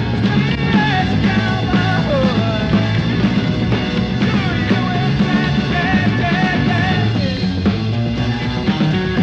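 Psychedelic rock band playing, with an electric guitar up front whose notes bend and slide in pitch over a heavy bass and drums.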